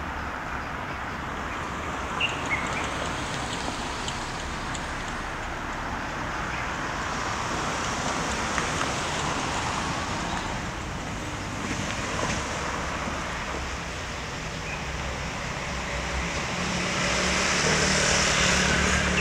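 Steady road-traffic noise, with a couple of short high chirps about two seconds in. It grows louder near the end, with a low hum rising under it.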